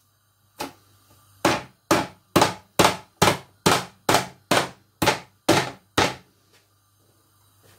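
Wooden rolling pin pounding a raw chicken breast flat on a wooden chopping board: about a dozen strikes, a little over two a second, stopping about six seconds in.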